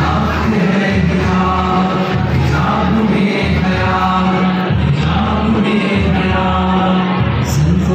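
An Urdu song about the hijab: a voice singing long, held notes that slide between pitches, over a steady low drone.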